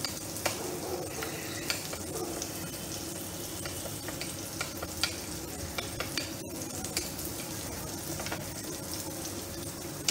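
Pointed gourd halves frying in oil with a steady sizzle, while a spoon stirs yogurt and ground spices in a small glass bowl, clinking lightly against the glass now and then.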